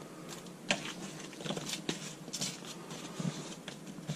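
Faint rustling and scattered light clicks of hands working dry breading mix onto cleaned blue crabs and dipping into a plastic tub of breading.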